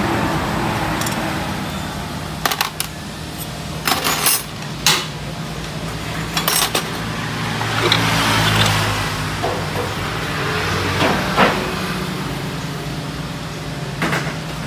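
Metal parts of a Honda scooter's CVT transmission being handled: a scattering of sharp clinks and knocks as the drive-face gear is set down and the clutch and driven-pulley assembly is pulled off its shaft, with a longer scraping sound about eight seconds in as the drive belt is worked off the pulley. A steady low hum runs underneath.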